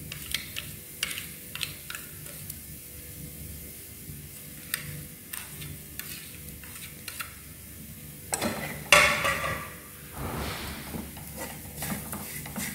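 Metal spoon stirring and scraping fried dried chillies and spices in a metal frying pan, with scattered clicks of spoon against pan over a faint sizzle. A louder rush of scraping comes about eight seconds in, with a weaker one just after.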